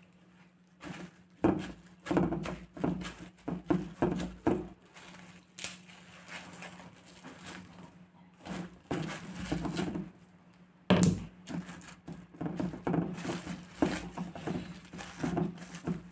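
Plastic cling film being pulled off its roll, stretched over a stainless steel bowl and pressed down by hand: irregular crinkling and crackling, in busy clusters about a second and a half in and again from about eleven seconds in.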